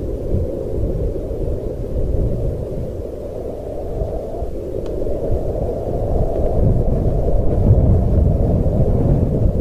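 Low, steady rumbling wind ambience with no howling, swelling a little about two-thirds of the way through.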